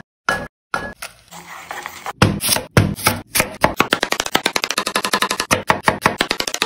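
Knife chopping on a cutting board: a few separate knocks at first, then from about two seconds in a quick, even run of strokes, roughly eight to ten a second.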